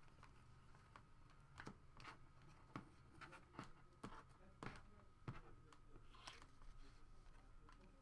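Near silence: room tone with about a dozen faint, irregular clicks and taps and a faint steady high tone.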